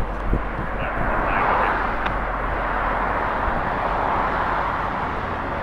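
Steady rumble of an approaching Florida East Coast diesel freight locomotive, still some distance off, with a constant low hum beneath.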